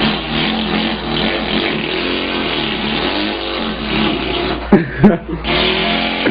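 A man's mouth imitation of an engine running, a continuous buzzing drone that wavers in pitch, broken about five seconds in by a short, loud burst with quick swoops in pitch.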